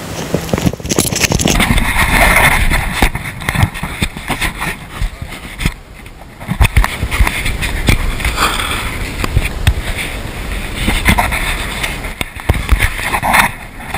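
Radio-controlled model boat running on the river, its motor noise and spray rising and falling in loudness with many sharp clicks and crackles, dipping briefly about six seconds in.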